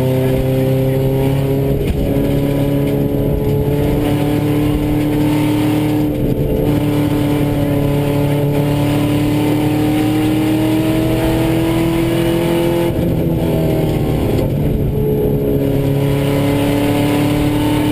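Subaru rally car's flat-four engine pulling hard under load, heard from inside the cabin over gravel and road noise. Its note climbs slowly, dips briefly about thirteen seconds in, then climbs again.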